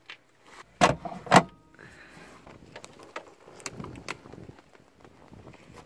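Miata soft-top latches at the windshield header snapped open, two sharp clacks about a second in, followed by the vinyl top and its folding frame rustling and creaking as the top is lowered, with a few lighter clicks.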